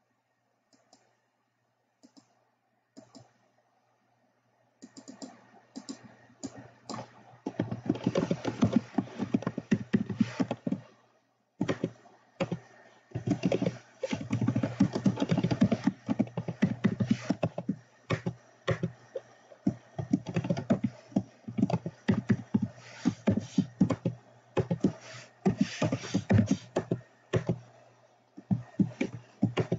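Computer keyboard being typed on, in fast continuous runs of keystrokes. The first few seconds are nearly quiet with only a few scattered clicks, and there is a short pause a little before the middle.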